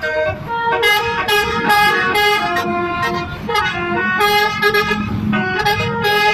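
Bus telolet horn, a multi-tone air horn, playing a quick melody of changing notes in several short phrases with brief breaks between them, over a low road rumble.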